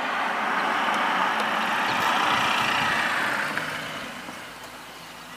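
A car driving up and past; its tyre and engine noise swells, then fades after about three and a half seconds.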